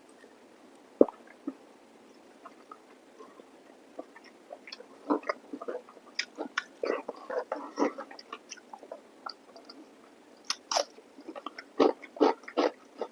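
Close-miked mouth sounds of a person eating: chewing and lip smacks in irregular bursts. They are sparse at first, busier in the middle, and there is a quick run of sharp smacks near the end.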